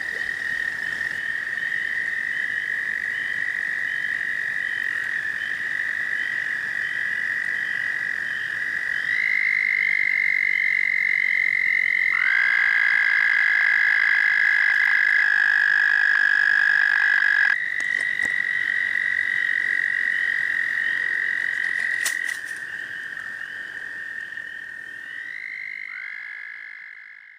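Several frogs trilling at once: long, steady, high trills at slightly different pitches overlapping. A lower trill joins about twelve seconds in and cuts off suddenly a few seconds later.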